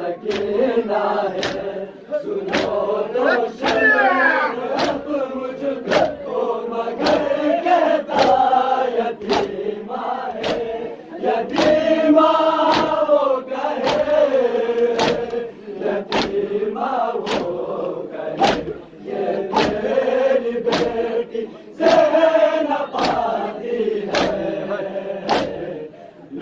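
A crowd of men chanting a noha in unison, kept in time by a steady beat of sharp hand slaps on their bare chests (matam), a little over one slap a second.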